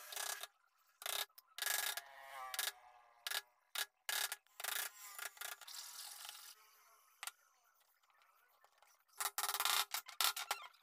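Steel chisel paring and a hand file rasping across softwood end grain, in separate bursts of short scraping strokes, with a lull of a couple of seconds before a final burst near the end.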